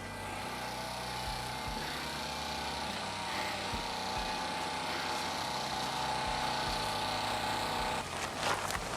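A steady machine drone with a constant hum that stops abruptly about eight seconds in, followed by a few knocks and scrapes.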